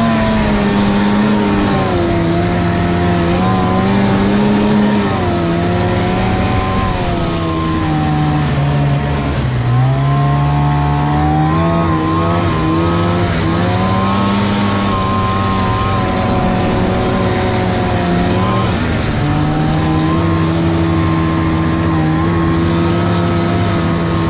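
Snowmobile engine running under way, its pitch rising and falling with the throttle and dipping low about ten seconds in.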